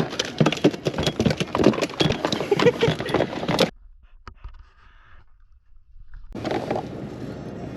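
A freshly landed mackerel thrashing on the boat, making a fast, irregular patter of slaps and knocks for about three and a half seconds. It cuts off suddenly, and a steady rush of wind and water comes in near the end.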